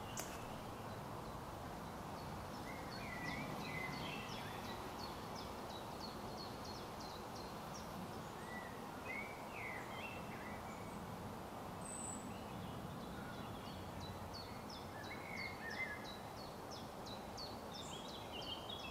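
Small songbird singing a long run of short, high, falling notes, a few a second, pausing for a few seconds midway, with a few lower chirps from other birds, over a steady outdoor hiss.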